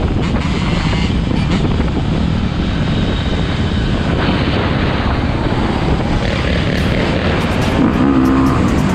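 Dirt bike engines running while the group rides down a street, heard from a rider's camera with wind buffeting the microphone.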